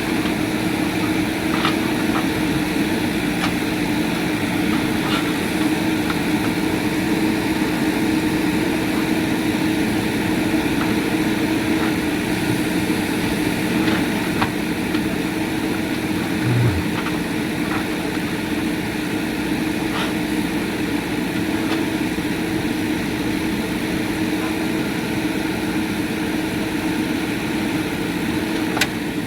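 JCB 3DX backhoe loader's diesel engine running steadily, with a few light knocks scattered through.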